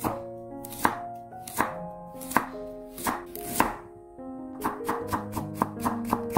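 Chef's knife cutting a raw carrot against a wooden cutting board: slow single strokes about every three-quarters of a second as rounds are sliced off, then, from about two-thirds through, a quicker run of about four chops a second as the slices are cut into thin strips. Soft background music plays under it.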